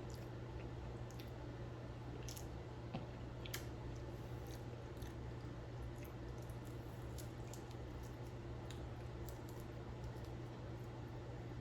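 Faint chewing and squishy mouth sounds of seafood-boil food being eaten, with scattered small clicks, over a steady low hum.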